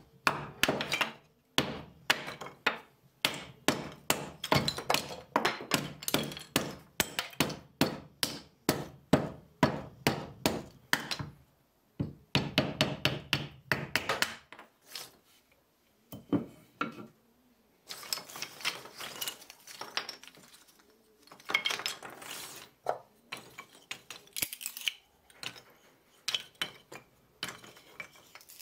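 Hammer strikes in quick succession, about three a second for the first half, then slower, irregular knocks in short clusters.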